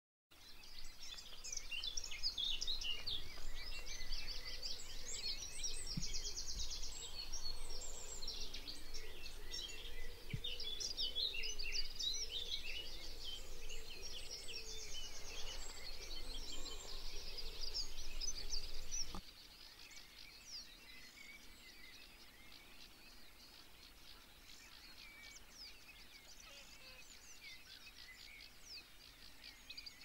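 Dawn chorus of many songbirds singing and calling at once: dense chirps, whistles and rapid trills, over a low rumble. About nineteen seconds in it drops suddenly to a fainter, more distant-sounding chorus.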